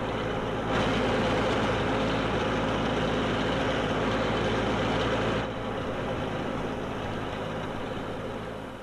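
Heavy vehicle engine running steadily with a low hum, louder from under a second in until a little past halfway.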